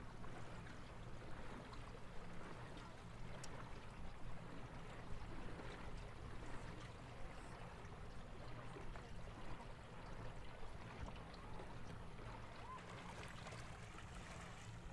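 Water rushing and lapping along the hull of a small electric boat under way, over a low steady hum.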